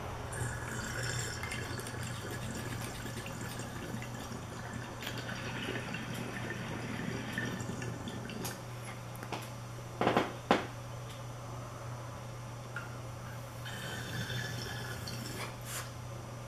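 Glass water-tornado bong bubbling and swirling as a dab hit is drawn through its water, steady for about the first eight seconds. Two sharp clicks follow about ten seconds in, and a shorter stretch of the same noise comes near the end.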